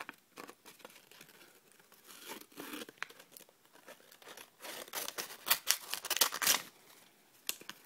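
Origami paper crinkling and rustling as the paper puppets are handled. About five seconds in there is a louder run of cutting and ripping as scissors cut into the yellow paper.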